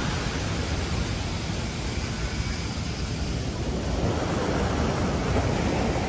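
Ocean surf washing on a beach: a steady rushing wash of water as a wave spreads out and draws back, swelling a little again in the second half.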